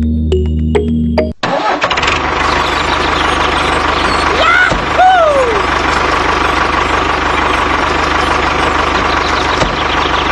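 Background music cuts off about a second in, giving way to an engine running steadily with a fast, even firing pulse. Two short rising-and-falling tones sound over it near the middle.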